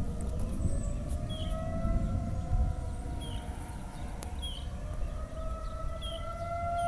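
Outdoor tornado warning siren sounding a steady wail, its pitch sagging a little early on and climbing back near the end.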